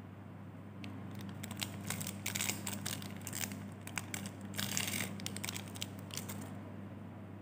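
Thin plastic snack wrapper of a single-serve Oreo packet crinkling in bursts as it is handled and the cookies are pulled out, stopping near the end. A steady low hum runs underneath.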